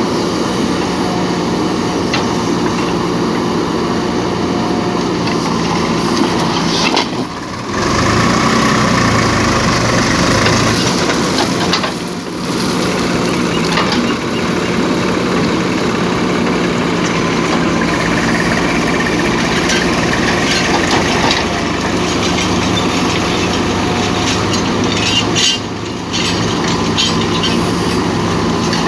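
Diesel engine of a backhoe loader running steadily while it digs and loads soil, with clattering and scraping over the engine. The sound drops away briefly three times.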